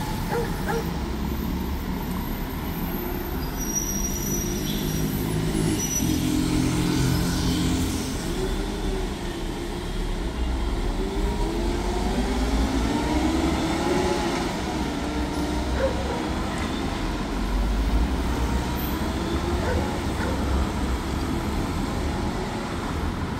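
Steady road traffic at a busy intersection: cars, motorcycles and a heavy truck passing, with engines rising in pitch as vehicles pull away.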